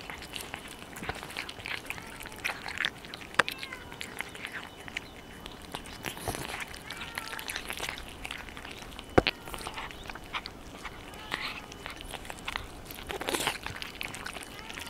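Several cats eating boiled carp off a plate close to the microphone: irregular wet chewing, smacking and licking. Two sharp clicks stand out, about three seconds and nine seconds in.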